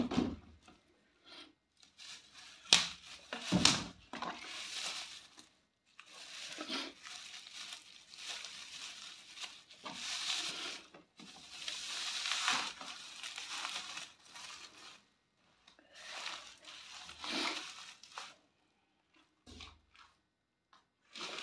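Bubble wrap crinkling and tearing as it is pulled off a plastic 5-litre jerry can, in irregular bursts with two sharp snaps about three and four seconds in.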